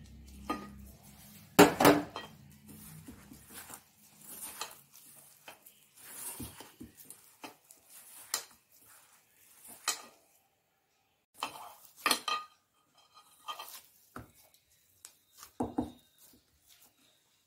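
Stainless steel bowl clinking and knocking irregularly as a hand mixes and kneads flour-and-fenugreek dough in it, with soft rubbing of the dough between the knocks. The loudest clatter comes about two seconds in.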